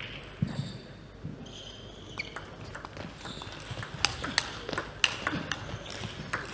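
Table tennis rally: the ball clicking sharply off the bats and the table in quick alternating strikes, sparse at first, then coming thick and fast in the second half.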